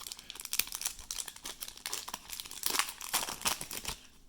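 Plastic wrapper of a trading-card pack crinkling and tearing as it is turned over and ripped open by hand: a dense run of crackles, loudest about three seconds in.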